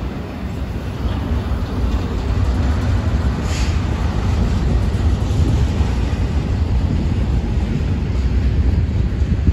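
Double-stacked intermodal well cars of a BNSF freight train rolling past: a steady low rumble of wheels on rail that grows louder over the first few seconds. A brief higher hiss comes through about three and a half seconds in.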